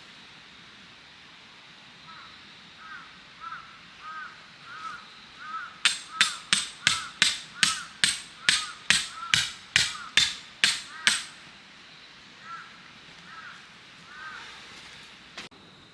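Steel tent peg being driven in with a hammer: a few light ringing taps, then about sixteen hard ringing strikes at about three a second, then light taps again near the end.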